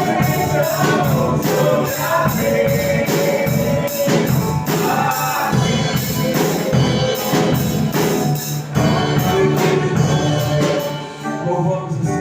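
Live gospel praise music: a church band with a steady beat of drums and high jingling percussion accompanying singing.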